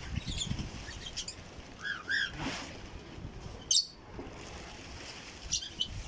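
Mixed aviary parrots, lovebirds and cockatiels among them, giving short, scattered chirps and squeaks, with one louder sharp sound a little past halfway.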